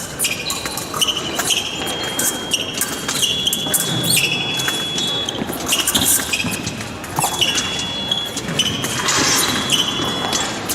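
Épée fencers' footwork on the piste during a bout: shoes squeaking repeatedly, with stamping steps and sharp clicks.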